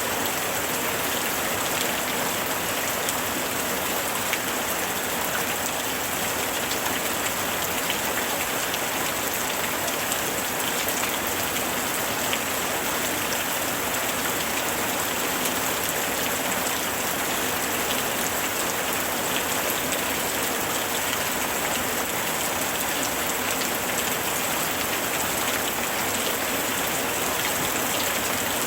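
Steady summer rain falling and pattering on surfaces, a dense even hiss of many fine drops.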